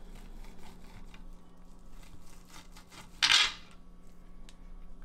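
Kitchen knife cutting raw bacon on a glass cutting board: light clicks and taps of the blade against the glass, with one louder, brief noise a little over three seconds in.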